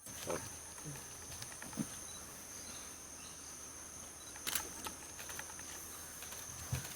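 Forest ambience: a steady high-pitched buzz of insects, with a few faint clicks and soft knocks scattered through it.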